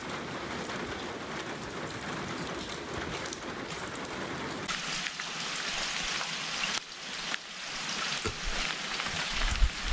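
Rain falling as an even patter, changing abruptly about halfway through to a brighter, thinner sound, with a few low knocks near the end.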